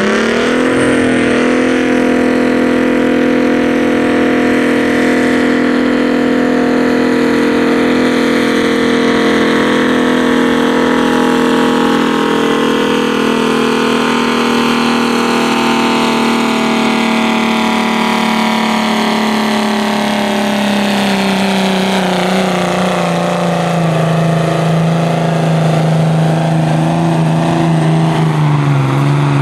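Pulling tractor's diesel engine running flat out under full load as it drags a weight-transfer sled. It holds a high, steady pitch, then from about halfway through the revs sag and the pitch falls as the load builds, picking up a little near the end.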